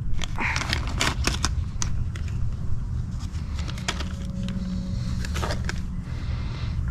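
Scattered light clicks and taps of small carburetor parts and seals being handled, over a steady low rumble.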